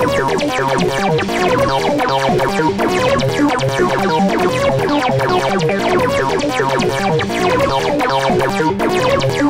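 Make Noise modular synthesizer patch, with MATHS used as an oscillator and sequenced by a René, playing a busy sequenced pattern. Many short, quickly decaying synth notes run in fast succession over a steady low bass note.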